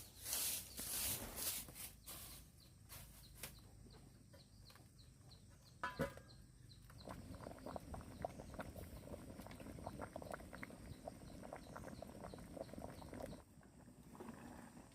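Chickens clucking and moving about, with one short call about six seconds in and a run of quick light taps after it. A rhythmic rustling noise opens the first two seconds.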